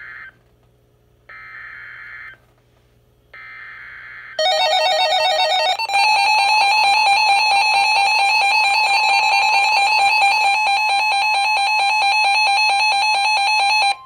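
NOAA Weather Radio alert coming in over weather radio receivers. First come the buzzy digital bursts of the SAME alert header, about a second each and a second apart. About four seconds in, the receivers' alarm goes off: a brief warble, then a loud, steady, shrill alarm tone over a lower steady tone, signalling a Special Marine Warning.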